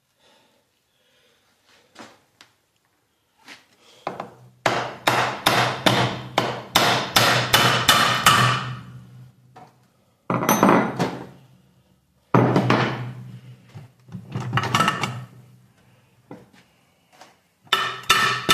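Hammer strikes on the housing of a T5 manual transmission, knocking it loose. A quick run of blows, about three a second, starts about four seconds in, followed by several shorter bursts of strikes.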